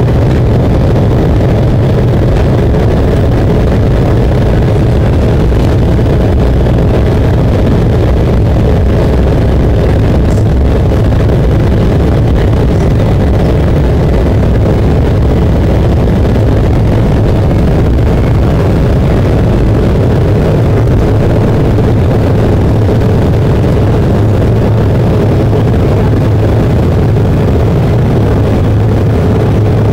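Cabin noise of an Embraer 170 on its takeoff roll: its GE CF34-8E turbofans at takeoff thrust give a loud, steady roar, mixed with the low rumble of the wheels on the runway. The low rumble eases near the end as the aircraft lifts off.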